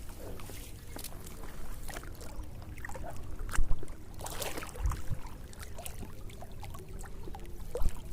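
Water splashing and sloshing with irregular knocks and handling noises, with a few heavier splashes or thuds about three and a half, five and eight seconds in.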